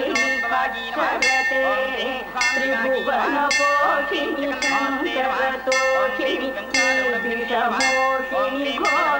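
Temple bells ringing during an aarti, struck roughly once a second and ringing on between strikes, over background music with a wavering melody.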